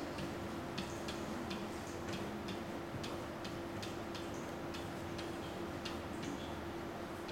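Pen tip clicking and tapping against an interactive whiteboard's hard surface as words are handwritten, about two uneven clicks a second, some with a brief high squeak, over a steady low hum.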